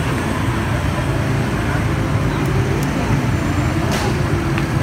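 Steady low engine rumble, like a motorbike idling close by, with faint voices in the background and one short click about four seconds in.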